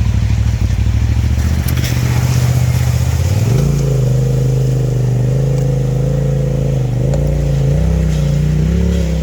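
Polaris RZR side-by-side engine running at low revs, then revving up about three and a half seconds in and holding higher revs with small rises and dips as it drives the trail.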